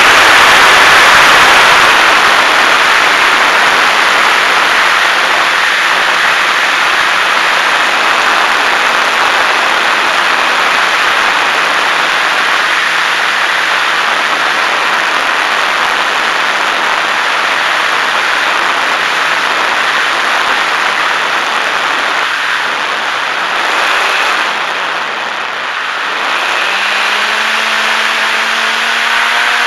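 Onboard recording of a HobbyZone Super Cub RC plane in flight: a loud, steady rush of wind and propeller noise from its electric motor. Near the end the level briefly drops, then the motor's whine rises in pitch as the throttle comes up.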